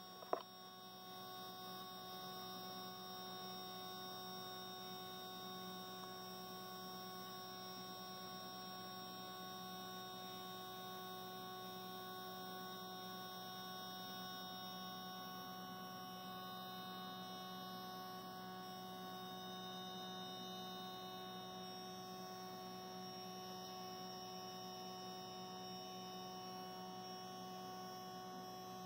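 Faint, steady electrical hum made of several steady tones, with one short click just after the start.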